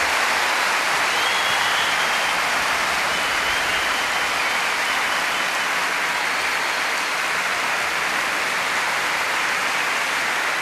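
A crowd applauding, with dense, steady clapping.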